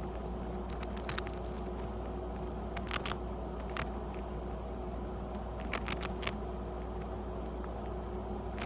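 Pet rat crunching on a cracker: short crisp crunches in small clusters every second or two, over a steady low hum.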